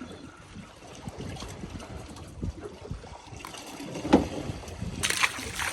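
Wind buffeting the microphone over water noise on a small boat, with a sharp knock about four seconds in and a short rush of hissing noise near the end.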